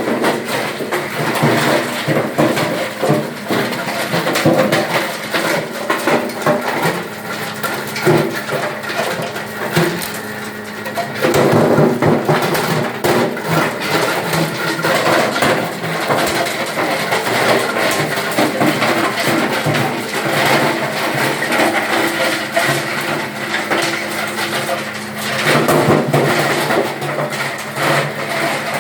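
Wood crusher machine running and shredding wood: a steady motor hum under constant cracking and knocking as the wood is broken up.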